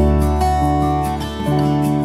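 Instrumental background music led by strummed acoustic guitar over a held low bass note, with the chord changing about a second and a half in.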